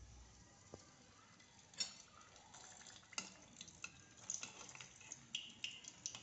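Hot oil crackling faintly around a large steamed momo in a shallow frying pan, in scattered sharp pops and spits that come more often from about two seconds in.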